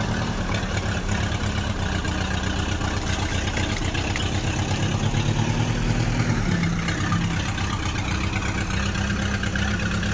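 Engine idling sound, running steadily with a fast, even low pulse, laid over the toy footage.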